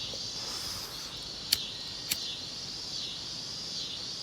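Insects chirping in a steady high-pitched chorus, with two sharp clicks about half a second apart, around a second and a half in.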